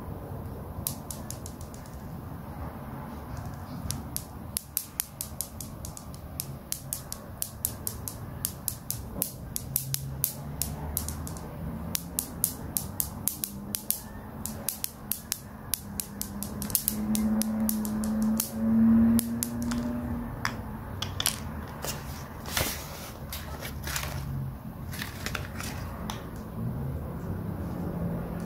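Small plastic toy pieces clicking and tapping as fingers handle them and fit them together, in quick irregular clicks. Underneath runs a low hum that swells into a louder drone for a few seconds about two-thirds of the way through.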